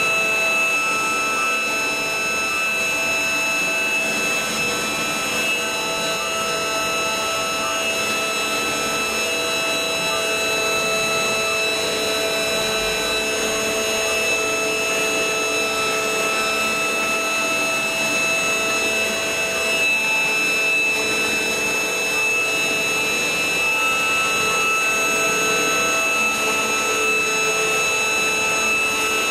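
CNC router spindle running steadily with a high, many-toned whine while its V-bit cuts grooves into a wooden board, with the rasp of the cutter in the wood.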